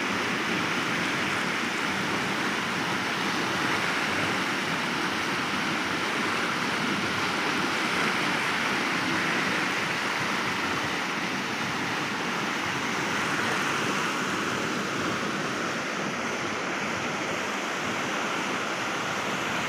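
A rain-swollen river in flood, its muddy water rushing over rocks and down small rapids in a steady, even rush of turbulent water.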